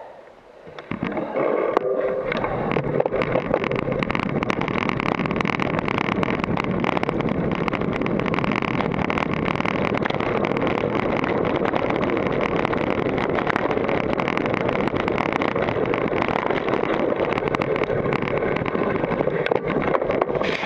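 GT Force Carbon mountain bike rolling fast down a dirt trail, heard through an action camera fixed to the bike: a steady rush of tyre and wind noise with constant clattering and rattling over the bumps. It starts about a second in as the bike gets moving.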